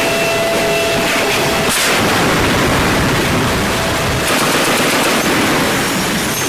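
Gunfire and explosions in combat: a loud, continuous din of shots, with a sharp crack about two seconds in.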